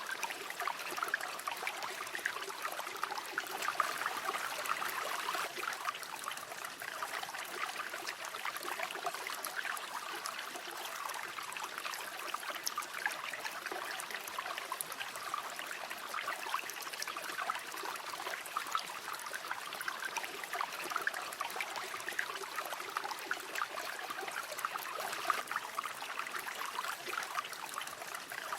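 River water flowing and trickling over stones, a steady babbling with many small splashes and gurgles.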